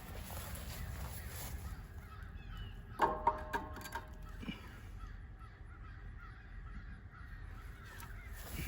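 A bird calling: a short run of harsh calls about three seconds in, over a low steady rumble.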